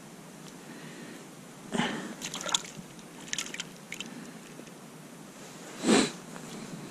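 Water sloshing and dripping at an ice-fishing hole, with scattered small clicks and crackles of handling. There are two louder short sounds, one about two seconds in and one near the end.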